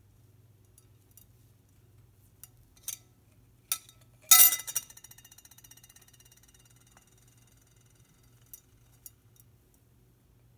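An African grey parrot pecking at a cut-glass bowl and the spoon in it: a few light taps, then, about four seconds in, a loud clink with a high ring that dies away over several seconds. Two faint ticks come near the end.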